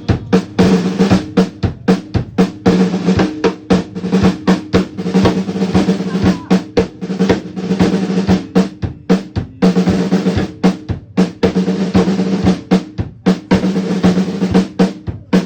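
Drum solo: fast, dense snare strokes and rolls with bass drum hits, the drums ringing on under the strokes.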